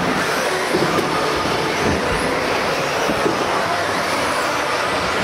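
Several 4WD radio-controlled buggies racing together in a large indoor hall: a steady, unbroken mix of motor whine and tyre noise.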